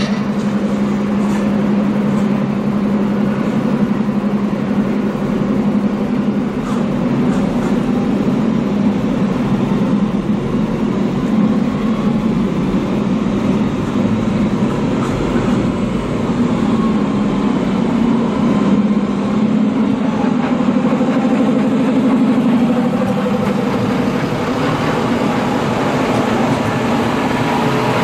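Diesel engines of an Erfurter Bahn Regio-Shuttle railcar running, a steady low hum.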